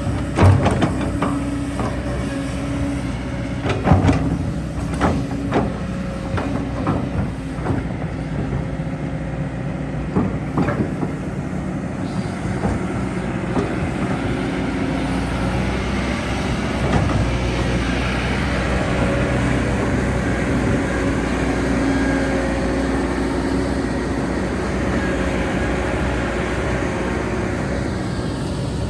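Excavator's diesel engine running steadily under load, with a series of sharp metallic knocks and clanks over the first eight seconds or so, then a steadier working noise.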